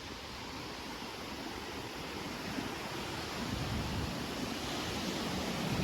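Sea surf washing on the beach, a steady wash of noise with wind buffeting the microphone in low rumbles, slowly getting louder.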